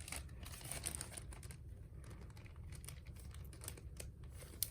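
Faint small clicks and light rustling from hands handling the old wick and parts of a Zippo lighter while discarding them.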